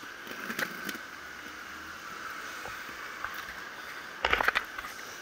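Street noise heard while moving along a sidewalk: a steady hiss with a few sharp clicks, and a burst of loud rattling clatter about four seconds in.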